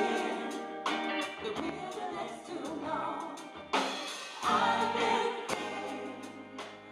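Female gospel vocal quartet singing in harmony, backed by a live band with drum kit and bass.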